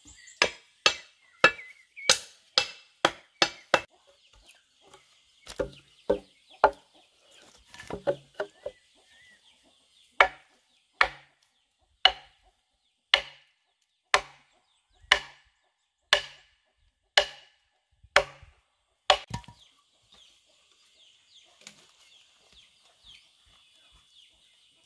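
Hatchet blows on wood: quick, uneven chops at first, then about ten steady blows roughly one a second striking the top of a wooden post set upright in a beam. After the blows stop, only faint bird calls remain.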